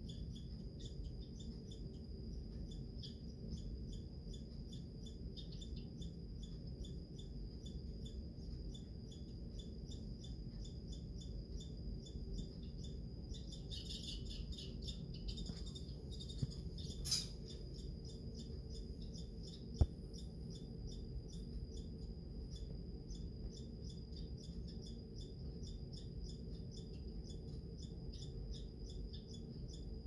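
American red squirrel chattering: a long, faint run of rapid, evenly spaced high chirps, the agitated territorial chatter of a squirrel upset at another squirrel on its feeding spot.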